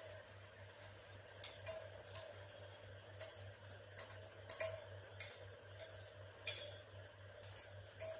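A metal spoon scraping and clinking against a metal vessel as soaked dal is spooned out of it: irregular light clinks and scrapes, one every half second to a second.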